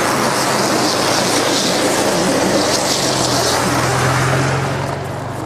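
A motor vehicle running close by, a steady engine hum with road noise that grows louder about four seconds in, then fades.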